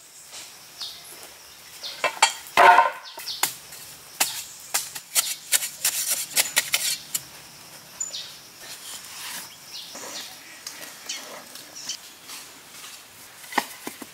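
Light clicks and taps of small hard objects being handled, with a louder clatter about two and a half seconds in.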